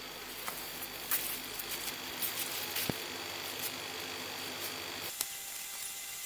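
Steady outdoor background hiss with scattered faint ticks and taps. A low hum and a thin high whine stop about five seconds in.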